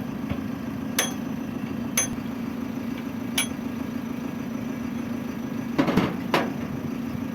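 Hammer striking the steel of a truck-mounted Hiab crane boom during repair: sharp metallic knocks that ring briefly. Three come about a second or so apart, then a quicker group of three near the end. A steady low engine hum runs underneath, typical of the truck idling.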